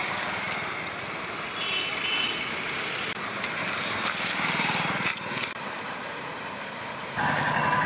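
Steady roadside traffic noise, growing a little louder shortly before the end.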